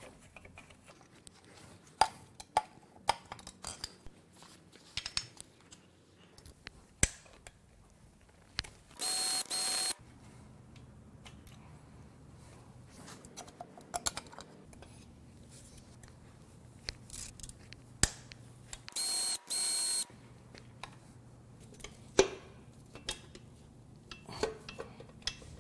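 Metal engine parts clinking and knocking as connecting rods and pistons are taken out of a Jaguar Land Rover 5.0L supercharged V8, with two runs of a power tool about a second each, around nine and nineteen seconds in.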